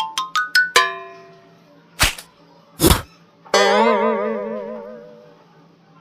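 Cartoon sound effects: a quick rising run of plucked notes, two short whooshes about a second apart, then a wobbling, warbling tone that slowly fades.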